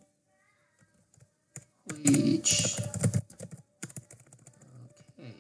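Computer keyboard typing: sparse key clicks, then a dense, loud run of keystrokes about two seconds in, and scattered keystrokes again near the end.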